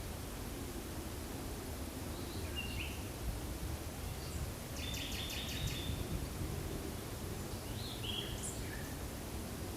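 Forest ambience with birds calling: a short high chirp about two and a half seconds in, a rapid trill around five to six seconds, and another chirp near eight seconds, over a steady low background rumble.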